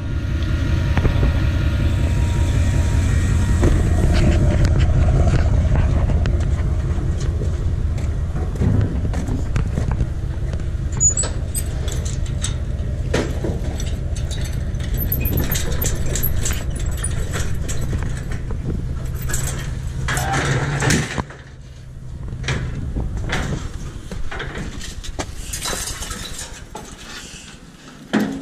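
Pickup truck engine running steadily, with metal clicks and jingles from the trailer's gate latch, pin and chain being worked. The engine cuts off about three-quarters of the way through, and light metal rattling follows.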